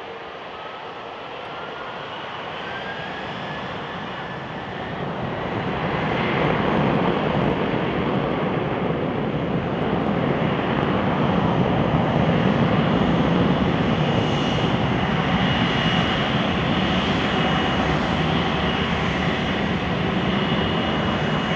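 Boeing 767-400ER's twin General Electric CF6 turbofans spooling up to takeoff power, a whine rising in pitch over the first few seconds. About five seconds in it swells into a loud, steady jet roar as the airliner starts its takeoff roll.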